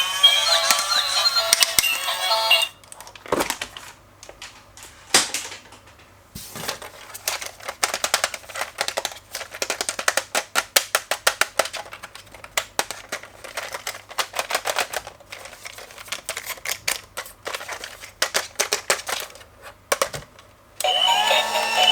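Music for the first few seconds, then a long run of rapid, irregular clicking and ticking, with a couple of louder clacks about three and five seconds in; music comes back near the end.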